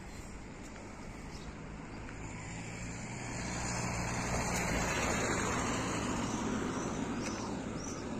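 A motor vehicle driving past: its engine and tyre noise swells over the first few seconds, is loudest about halfway through, then eases off.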